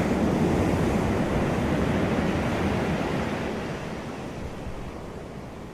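Ocean surf washing onto a beach: a broad rush of water that is loudest at the start and fades off gradually over the next few seconds as the wave spends itself.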